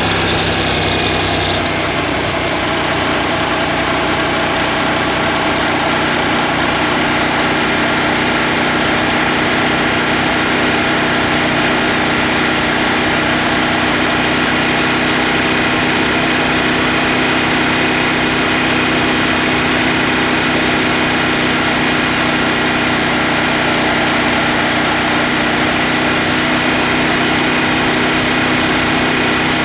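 KTM 790 Adventure's parallel-twin engine running steadily at constant revs.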